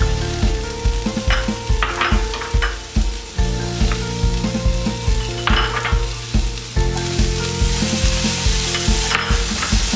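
Chopped bell peppers and capsicum dropped into a hot oiled pan, sizzling as they fry, with short scrapes of a spatula stirring them. Under it runs background music with a steady beat.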